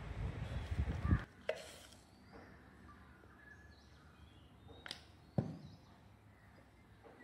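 Faint bird calls in the background, with a few light clicks. A rough low noise in the first second stops suddenly.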